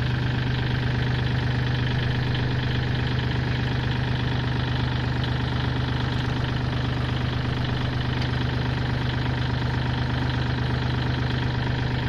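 Kubota L3608 tractor's diesel engine idling steadily, close by.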